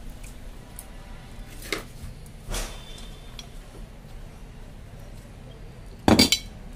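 Aluminium steamer pot lid being handled and lifted off, with a couple of light metal knocks and a loud clatter of the lid near the end.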